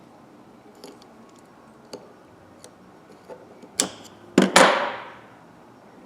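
Small metal clicks and taps of a ratchet's retaining spring clip being worked into the head with fingers and a screwdriver, a few scattered ticks and then a louder sharp snap followed by a short metallic rattle about four and a half seconds in.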